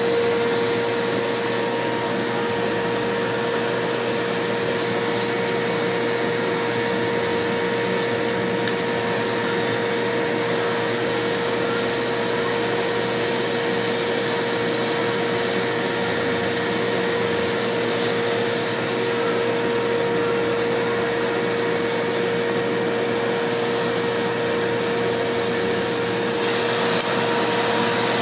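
EZTrim Drone trimming machine running: its motor spins the arm round the slotted bowl with a steady whir, an even pitched hum over an airy rush, unchanging throughout.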